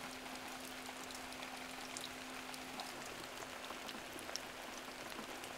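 Light rain falling, a soft hiss of rain with many scattered drops ticking on surfaces, over a faint steady hum.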